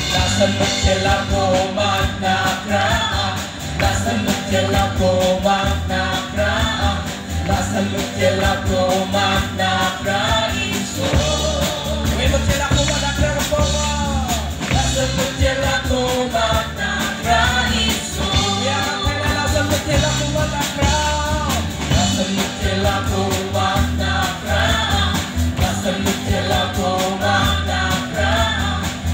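Live Christian worship band playing a song: several singers, men and women, singing together over electric guitar, keyboard and drums with a steady beat.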